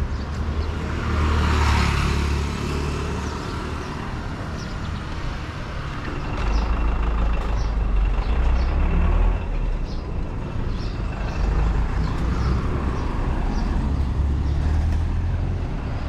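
Town street traffic: a vehicle passes about a second or two in, over a steady low engine rumble that grows louder from about six seconds in.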